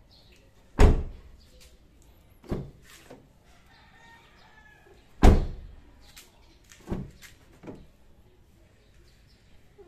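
Car rear door slammed shut twice with a heavy thud, about a second in and again about five seconds in. Each slam is followed a moment later by a lighter knock as the door is opened again. The door has universal shock-absorbing rubber gaskets fitted to soften the closing.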